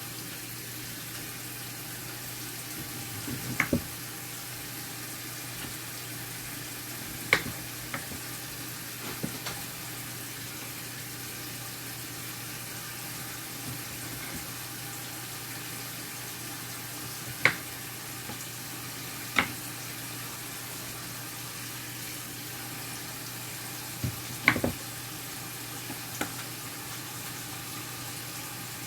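Kitchen cooking sounds: a steady sizzling hiss from food cooking on the stove, broken every few seconds by sharp knocks and clinks of utensils and dishes.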